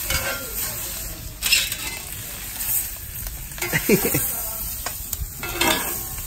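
Squid pieces sizzling on a hot gas-barbecue hotplate, with a steady hiss. Metal tongs clack and scrape against the plate now and then as the pieces are flipped.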